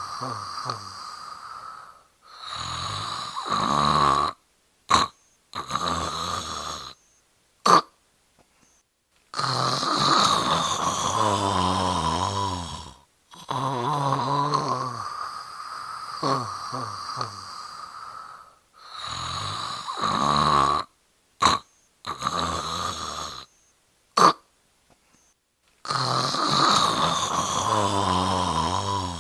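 A person snoring: long drawn-out breaths of a few seconds each, separated by short silent pauses. A few brief sharp sounds fall in the pauses.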